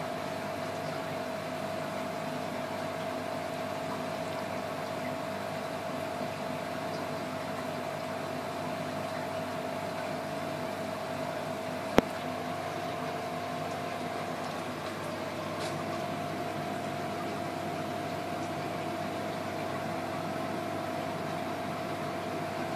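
Aquarium filtration running: a steady wash of moving water and bubbling with a constant pump hum. A single sharp click about halfway through.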